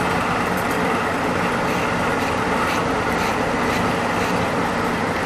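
An electric blower, such as a fan or dryer in the grooming room, running with a steady whooshing noise and a low hum. A few faint strokes of a slicker brush through wet, conditioned hair sound over it.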